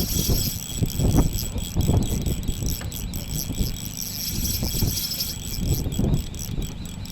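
Wind buffeting the microphone in uneven gusts, loudest in the first couple of seconds. Above it runs a steady, high, pulsing chirr.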